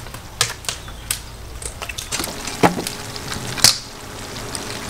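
Live crayfish being handled in an enamel basin: scattered sharp clicks of hard shells against each other and the basin, with two louder knocks about two and a half and three and a half seconds in.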